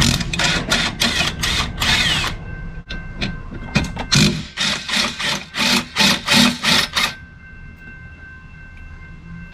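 Hand ratchet on an extension clicking in quick back-and-forth strokes, about three a second, undoing the bolts that hold the air suspension compressor assembly. It pauses about two seconds in, starts again, and stops about seven seconds in.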